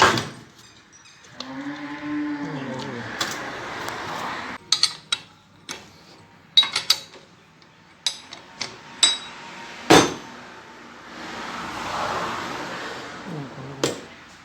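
A cow mooing in one long call that rises and falls, starting about a second and a half in. Sharp metallic clanks of tools and parts sound on and off around it, the loudest about two-thirds of the way through.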